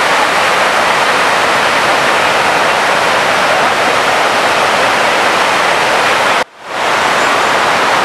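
Whitewater of the Rhine Falls rushing: a loud, steady wash of water noise, cut off for a moment about six and a half seconds in before it resumes.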